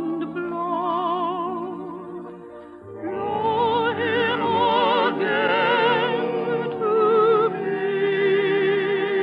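Operatic vocal music with orchestra: held notes with wide vibrato over a sustained accompaniment, thinning out briefly a few seconds in before a louder, fuller passage.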